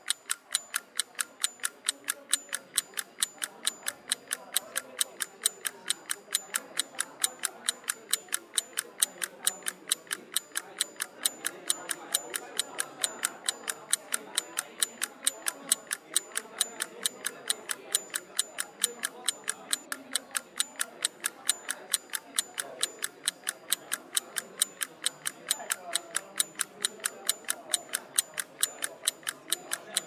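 Rapid, even ticking like a clock, about three to four ticks a second, over a faint murmur of voices.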